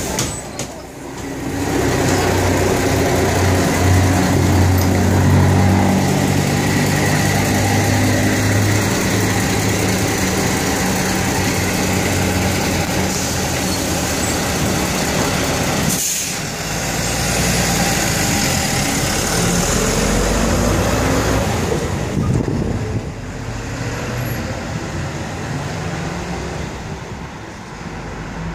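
Diesel engine of an Ikarus 280 articulated bus running at a stop, with air-brake hiss, then the bus pulling away so that its sound falls off over the last few seconds.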